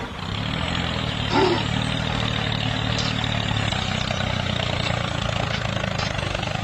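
An engine running steadily at an even speed, a low hum under a broad, even rattle.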